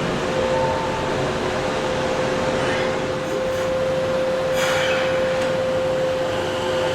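Kobe Municipal Subway 1000 series train running at steady speed: an even rushing noise with a constant single-pitched tone mixed in. This is the odd steady tone heard on many of these chopper-to-IGBT converted cars.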